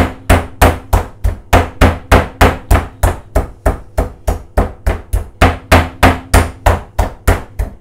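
Wooden meat mallet pounding a raw chicken breast through cling film on a wooden chopping board to flatten it. A steady run of blows, about three a second.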